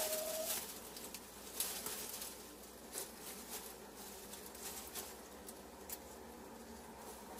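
Hen shuffling and settling in a nest of dry straw: faint, scattered rustles and light crackles of the straw. At the very start there is a short, steady hen note.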